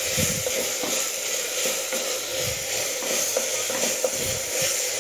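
Chopped brinjal, tomato and potato sizzling as they are sautéed in a clay pot, under a steady hiss. A spoon scrapes and knocks irregularly as it stirs them.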